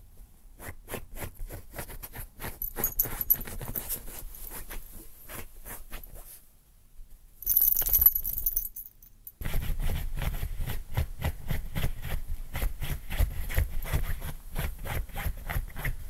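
Maltese puppy scratching itself: rapid rhythmic scratching strokes, about four or five a second, in two bouts with a pause of a few seconds between them. A brief louder noise falls in the pause, about eight seconds in.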